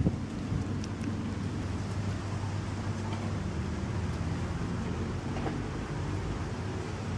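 A steady low mechanical hum, like an engine running, with a few faint clicks over it.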